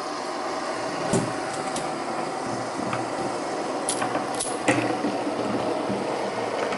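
Many metal fidget spinners whirring on their bearings on a wooden tabletop, a steady whir as they are flicked into spin one after another. A few sharp clicks come through, about a second in and again around four to five seconds in.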